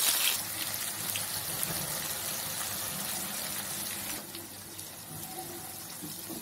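Sliced onions sizzling in hot oil in a kadhai, deep-frying on their way to golden brown: a steady hiss that is loudest at first and drops down about four seconds in.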